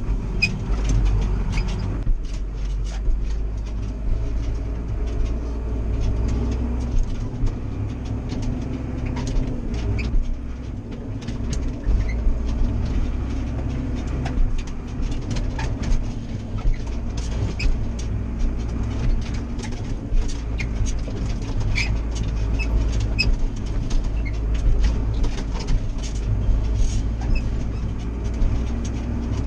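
Massey Ferguson 6485 Dynashift tractor's diesel engine running steadily as it drives along, heard from inside the cab, with frequent light rattles and knocks from the cab and the hitched silage trailer.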